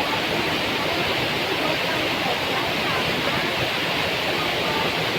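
Waterfall: falling water rushing with a steady, even noise.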